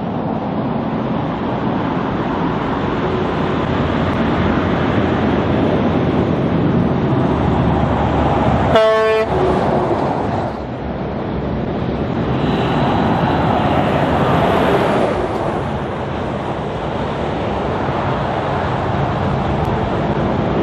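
Heavy trucks driving past with steady engine and tyre noise. About nine seconds in, as one passes close by, there is a single short toot of a truck horn.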